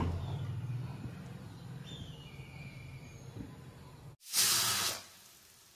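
Low steady hum with faint handling noise for about four seconds. Then, after a sudden gap, a brief loud hiss of under a second that fades to faint room tone.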